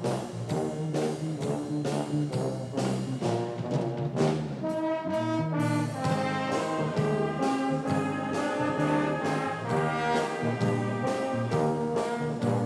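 A brass band of trumpets, trombones, euphoniums and tubas playing a tune in held chords over a steady beat of about four strokes a second. The beat drops out for a moment about five seconds in.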